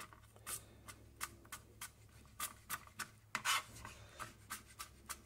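Kitchen knife slicing a garlic clove on a cutting board: light, irregular taps of the blade striking the board, about two or three a second.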